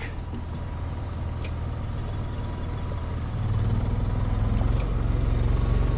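Steady low engine drone aboard an electrofishing boat, getting louder about three and a half seconds in.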